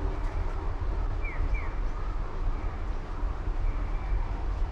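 Outdoor street ambience with a steady low rumble of traffic. Two short falling chirps come about a second and a half in.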